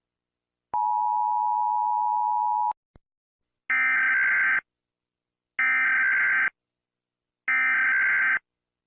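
Emergency alert broadcast signals: a steady electronic tone for about two seconds, then three identical short, buzzy electronic bursts about two seconds apart.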